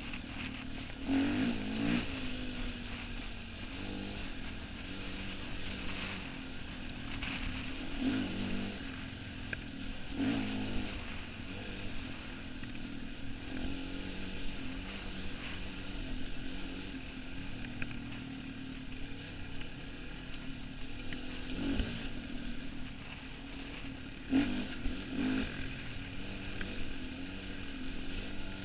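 Enduro dirt bike engine running under a rider on a rough gravel track, heard from a helmet camera, its pitch surging up and falling back several times as the throttle is opened and closed.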